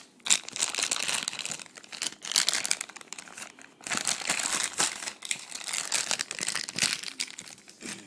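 Clear plastic packaging crinkling and rustling as a laptop power adapter and its cable are unwrapped and handled, in irregular stretches with short pauses.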